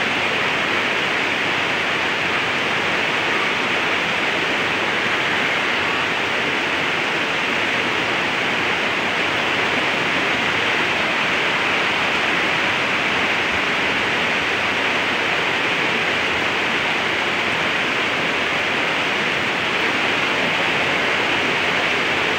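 Flood-swollen falls: muddy floodwater rushing over rocks into a high river, a steady loud rush of water with no let-up.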